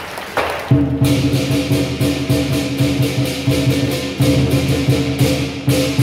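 Traditional southern lion dance percussion of large drum, gong and cymbals starts up just under a second in and plays a steady beat, with cymbal clashes about twice a second over the ringing of the gong and drum.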